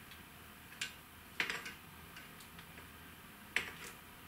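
Fishing rods being handled and pressed tip-first against a wall: three short, light clicks and taps, the first faint, in an otherwise quiet room.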